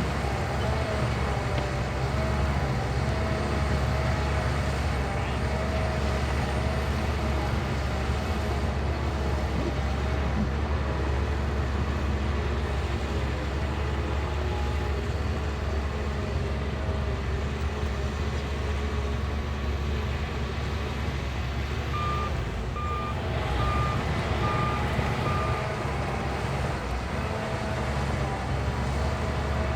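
Shantui bulldozer's diesel engine running steadily under load, with a wavering whine above the low drone. About 22 seconds in, a reversing alarm beeps five times as the dozer backs up.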